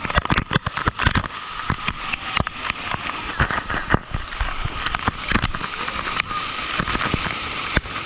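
Rushing water from a monsoon stream or waterfall, with many irregular sharp clicks and knocks over it.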